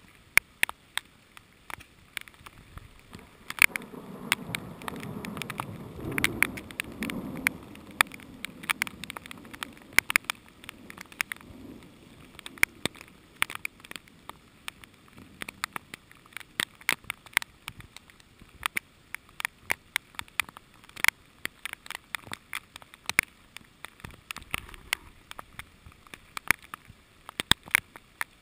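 Heavy rain, with drops striking the camera as irregular sharp ticks over a steady hiss. A low rumble swells about four seconds in and fades away by about twelve seconds.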